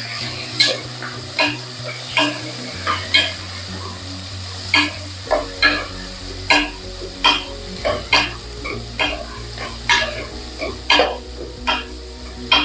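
Sliced onions frying in hot oil in a pressure cooker, sizzling steadily while a spatula stirs them, scraping and knocking against the pot about one and a half times a second.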